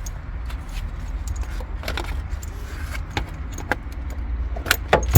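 Metal seat-belt hardware (buckle tongue and anchor plate) clinking and clicking as the belt is pulled out and fed through, with a handful of separate sharp clicks, the loudest at the very end, over a low rumble of handling noise.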